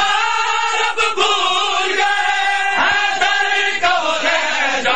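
Crowd of male mourners chanting a Shia noha (lament) together in long held lines, with sharp hand slaps of matam (chest-beating) now and then.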